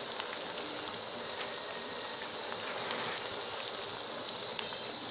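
Chicken and vegetable macaroni sizzling in a frying pan over the heat: a steady hiss with scattered small crackles and pops.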